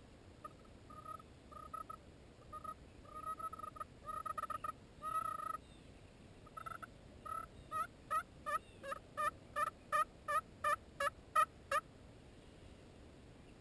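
Wooden box turkey call worked by hand, imitating a hen turkey: soft, scattered clucks and drawn-out notes at first, then a quick run of about a dozen sharp yelps, two to three a second, that stops a little before the end.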